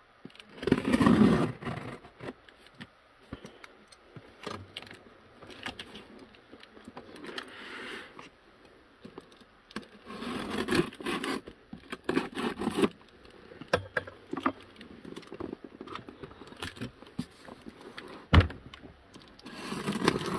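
Scissor blade slitting packing tape on a cardboard shipping box, with cardboard scraping and rustling as the box is turned and handled. There is a sharp knock near the end.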